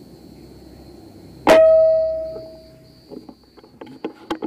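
A single PCP air rifle shot about a second and a half in: a sharp crack followed by a metallic ringing tone that fades over about a second and a half. A few light clicks follow near the end.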